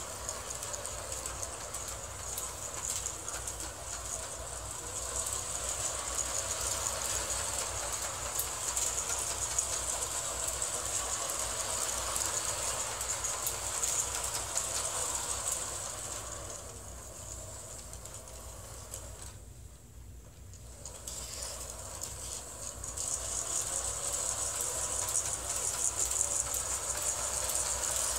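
Playmobil 3958 toy train running around a circular track: a small electric motor whirring and the wheels rattling over the plastic track, growing fainter and then louder again as it circles, quietest about twenty seconds in.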